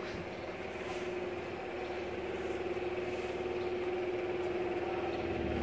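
A steady mechanical hum with a constant pitch, growing slowly louder.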